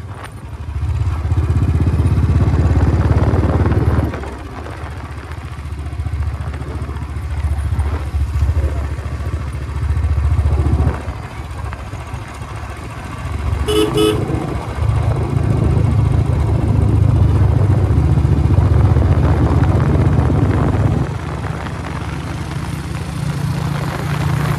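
Motorcycle engine running under way, swelling and easing in stretches of a few seconds as the throttle opens and closes. A short horn beep sounds about halfway through.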